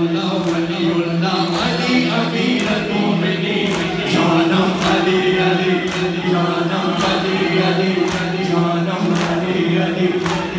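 A crowd of men chanting a noha in unison, led by an amplified male voice, with sharp rhythmic slaps of chest-beating (matam) roughly once a second.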